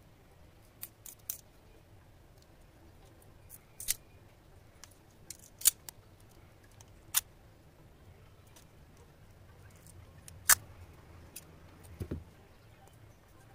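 Scattered sharp clicks and taps of craft tools and materials being handled on a tabletop, irregularly spaced, the loudest about two-thirds of the way through, followed by a duller knock near the end.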